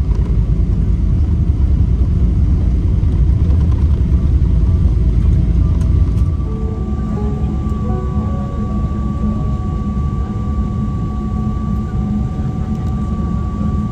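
Cabin noise of a Boeing 777-300ER on its landing rollout: a loud, steady low rumble that eases about six seconds in as the jet slows. After that, a steady whine sits above the rumble.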